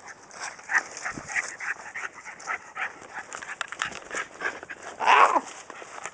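A dog making a string of short noises during rough play, with one louder bark about five seconds in.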